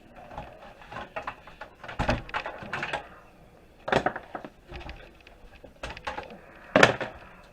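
Irregular knocks, clicks and rattles of wires, connectors and parts being handled inside a desktop computer case during a teardown. The loudest knock comes near the end.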